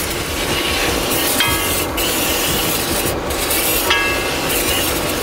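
Induction cooker beeping twice as it is switched on and set, with hissing bursts of olive-oil spray from an aerosol can into the pan, over steady background noise.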